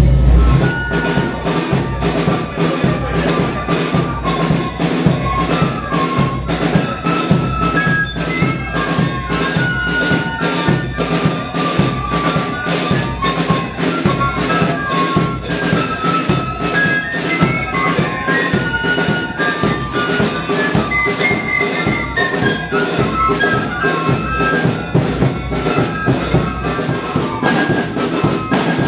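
Church brass band playing a melody over a steady drum beat.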